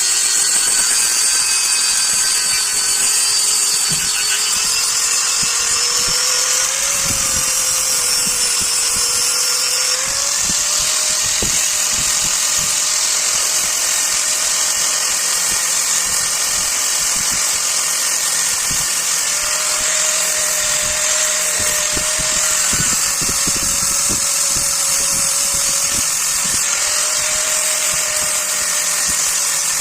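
Electric grinder working steel, with a steady strong high hiss over a motor whine whose pitch wavers slightly up and down.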